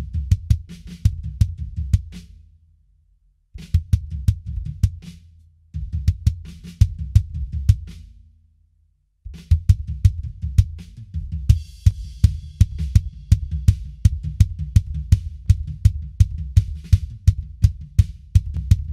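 Recorded drum kit playback with the kick drum to the fore, heard through a dbx 160-style RMS compressor plugin on the kick channel. The drums stop and restart twice, then play steadily, switched to bypass for comparison in the second half.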